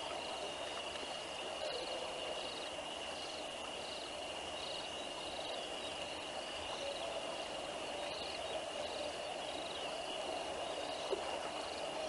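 Dusk riverside ambience: a steady high-pitched insect trill with a chirp repeating about twice a second, over a low even hiss of flowing river water. A brief tick sounds near the end.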